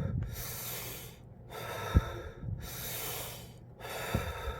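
A man breathing deeply and noisily in and out through his open mouth, about four long breaths in a row with short pauses between them, as a breathing exercise. Two soft low thumps come in, about two and four seconds in.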